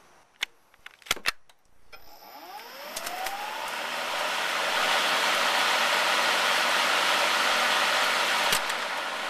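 Greenworks 80-volt cordless electric lawn mower started on a nearly flat battery. There are a few clicks as the start button and bail bar are worked, then the blade motor spins up with a rising whine and runs at a steady whir. A click near the end is followed by a slight drop in level.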